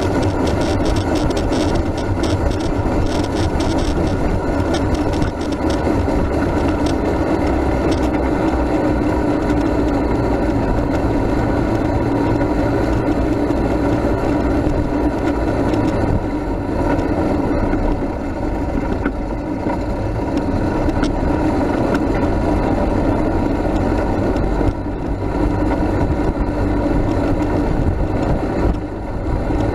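Steady rolling noise of a Max II 6x6 amphibious ATV being flat-towed on a paved road, with a quick run of rattles and clicks from the vehicle in the first few seconds.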